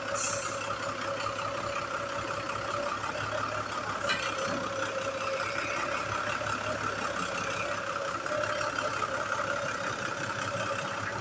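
Light truck's engine idling steadily, with a constant tone held over the engine noise.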